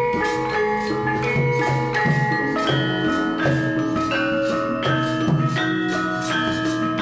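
Central Javanese gamelan ensemble playing: metallophones are struck with mallets in a busy, continuous run of ringing notes over sustained low tones.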